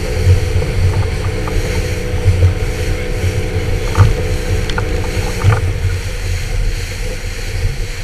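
Boat engine droning steadily as a fishing boat runs across choppy water, with wind buffeting the microphone. A few sharp knocks of the hull through the chop come about four to five and a half seconds in.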